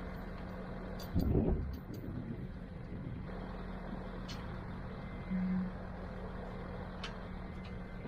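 Steady low hum of an engine idling in the background. There is a brief louder rumble about a second in and a short rise in the hum about five seconds in, with a few faint clicks.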